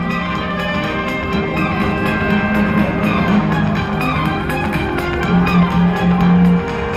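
Music with guitar over a steady beat.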